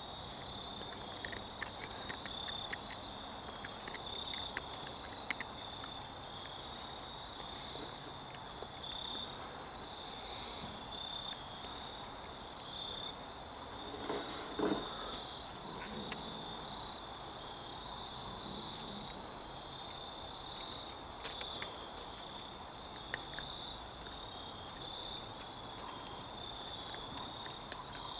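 Crickets chirping in a continuous high, pulsing trill, with scattered faint clicks and one short louder sound about fourteen seconds in.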